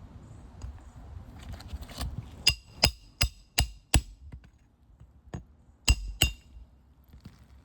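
Hand hammer driving roofing nails through an asphalt shingle, metal ringing on each blow: a quick run of five strikes about two and a half seconds in, then two more near the end.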